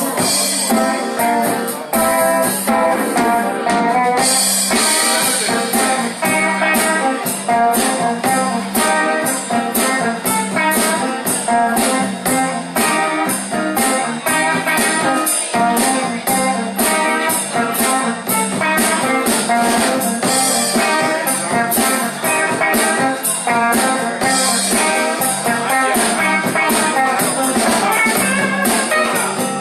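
Blues band playing an instrumental passage: guitar over a drum kit with a steady beat.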